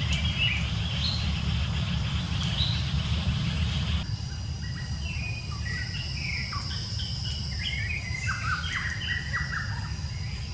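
Birds chirping and calling in the trees: a few short high chirps, then from about five seconds in a quick run of short downward-sliding notes, over a steady low rumble.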